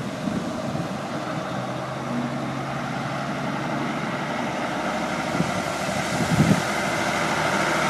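Road traffic with a heavy truck's diesel engine running, growing gradually louder as it draws near.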